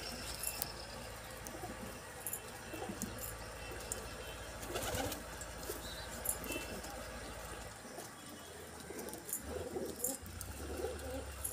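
Domestic pigeons cooing in low, wavering calls, more of them near the end, with scattered sharp clicks and a steady low hum underneath.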